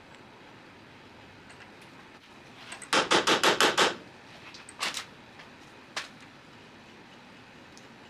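Impact wrench hammering in one short burst of about eight rapid strokes, loosening the nut to take the Pitman arm off a Saginaw steering box. A few single metal clinks follow.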